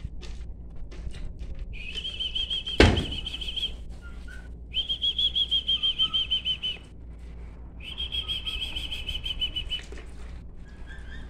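Juvenile emus giving high-pitched, rapidly trilled whistles in three bouts of about two seconds each. A single sharp knock comes about three seconds in.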